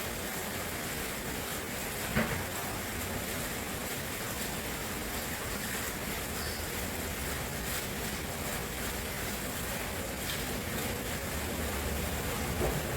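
Steady rushing of flowing water, with a short click about two seconds in.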